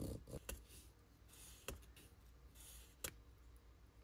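Quiet hand-cutting of a thin styrene plastic tube with a metal blade on cardboard: a few soft scrapes, then three sharp clicks spread about a second apart.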